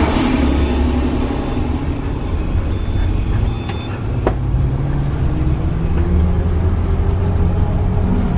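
Motorhome engine running steadily under load on a long uphill climb, heard from inside the cab with road noise; its pitch rises a little around the middle. A single sharp click about four seconds in.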